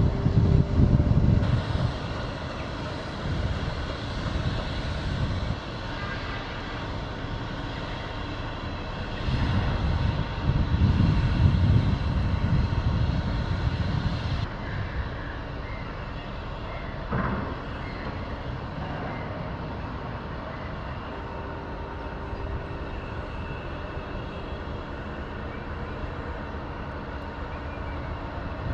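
Steady drone of ship engines carrying several faint held tones, with wind buffeting the microphone at the start and again from about 9 to 14 seconds in.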